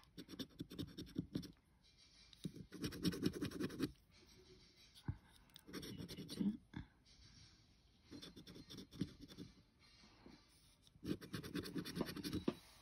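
A round scratcher token rubbing the scratch-off coating from a Red Hot Bingo scratchcard. It scratches in quick gritty spells of a second or so, with short pauses between them.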